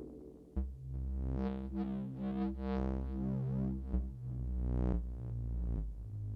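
Elektron Syntakt synthesizer playing a sound-pack preset. A held synth bass and a melodic line that changes notes come in about half a second in, with some notes gliding in pitch.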